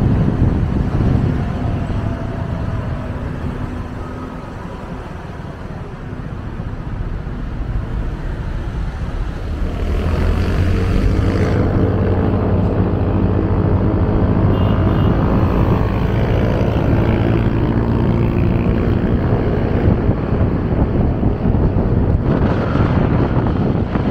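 Riding on a motorcycle through city traffic: wind rushing over the microphone and road noise, easing a little about five seconds in. About ten seconds in, a steady engine drone with a clear pitch comes in and holds.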